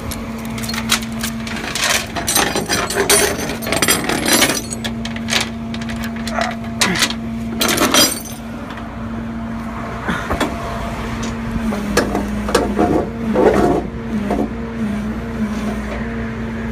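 Metal tow chains clinking and rattling as they are handled and rigged, a quick flurry of clanks in the first half and scattered ones later, over a steady engine hum.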